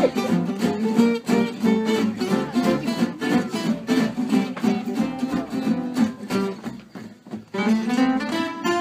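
An ensemble of acoustic guitars with a double bass playing an instrumental piece: strummed chords on a steady beat under picked melody lines. The playing thins out briefly about seven seconds in, then a new phrase climbs in.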